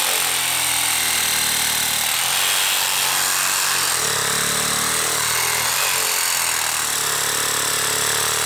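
Dewalt Atomic DCS369 20-volt brushless compact reciprocating saw running at a steady level, its stock blade cutting through a tree branch.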